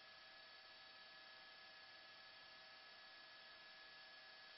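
Near silence: a faint, steady hiss with a few thin steady whining tones.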